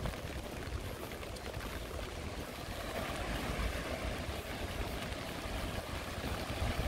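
Steady rain, an even hiss over a low rumble.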